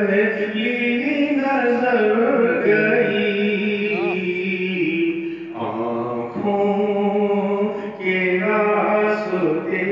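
A man's voice singing a naat, an Urdu devotional poem in praise of the Prophet, drawing out long held notes with melodic turns. There is a short break about five and a half seconds in, then the singing resumes.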